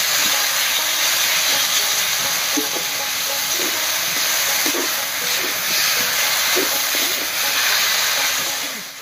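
Boiled ash gourd greens sizzling in hot oil in a metal wok as a flat spatula stirs them together with fried dried fish: a loud, steady frying hiss.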